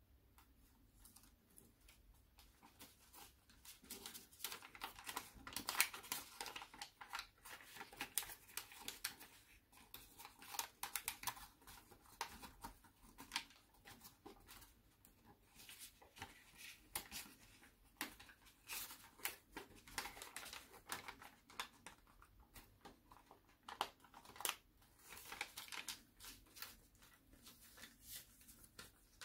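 Sheet of paper being folded and creased by hand: faint, irregular crinkling and rustling with short crackles, busiest from about four to twelve seconds in and again from about nineteen to twenty-seven.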